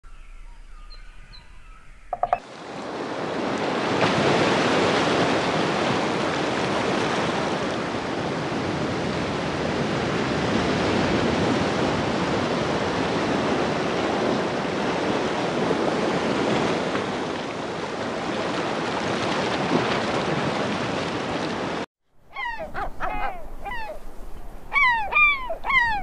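Steady rushing noise of ocean waves and surf that cuts off abruptly near the end. It is followed by a bird calling in a quick series of short, downward-sliding notes.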